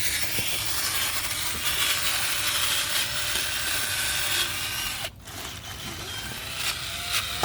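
Sanding on a 1981 Honda Prelude's engine block: a steady abrasive scraping that stops briefly about five seconds in, then resumes.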